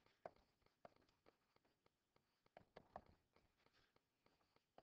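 Near silence with faint, scattered ticks and taps of a stylus writing on a tablet screen.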